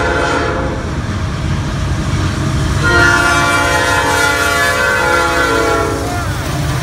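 Norfolk Southern diesel freight locomotive's air horn. One blast trails off about a second in, then a long chord of several tones sounds from about three to six seconds, over the low rumble of the locomotive's diesel engine as it passes close by.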